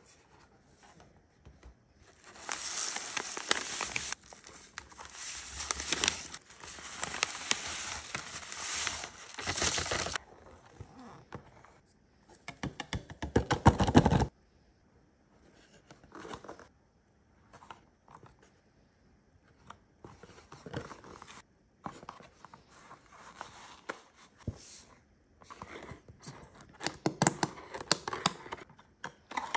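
Packaging handling: a cardboard Shake 'n Bake box is torn open with several seconds of tearing, rustling and crinkling. Then comes a loud burst of handling as dried parsley is shaken in from a glass spice jar, followed by scattered small clicks and squishes as mayonnaise is squeezed from a plastic squeeze bottle into the box.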